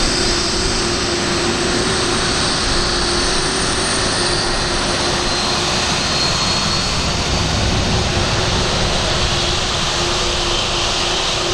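Lockheed C-5M Super Galaxy's four General Electric F138 turbofans running at taxi power as the aircraft taxis and turns. The sound is a steady rush of jet noise with a low hum and a thin high whine.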